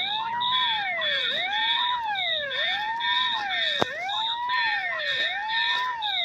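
Fire alarm going off: a wailing tone that rises and falls about once every 1.3 seconds, with a rapid high-pitched beeping over it. A single sharp click sounds about midway.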